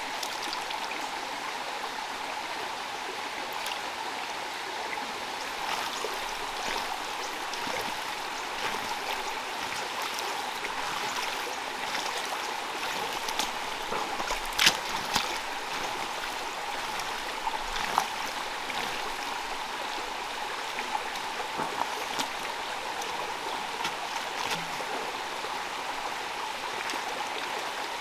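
Bare hands sloshing and splashing in shallow muddy water, over a steady hiss of running water. A few sharper splashes come about halfway through.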